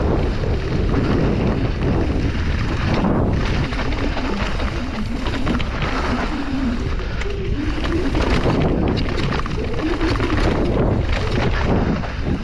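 Wind buffeting the microphone of a mountain bike descending a rough downhill trail, with the bike clattering over bumps in many short knocks.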